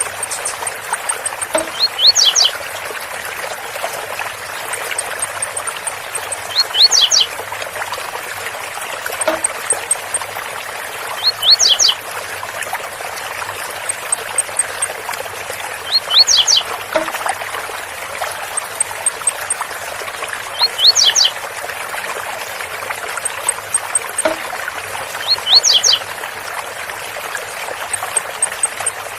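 Blue-black grassquit (tiziu) singing its 'zel zel' song: a short, sharp phrase of high notes, repeated about every four and a half seconds, over the steady rush of a waterfall.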